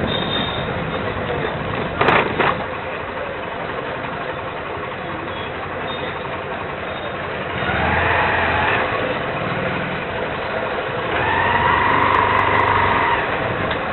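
Busy market-lane street noise: a constant hubbub of people with motor scooter engines passing, louder about eight seconds in and again around twelve seconds.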